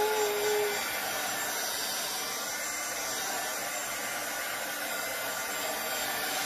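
Hand-held hair dryer running steadily on one setting, blowing fluid acrylic paint across a canvas in a Dutch pour.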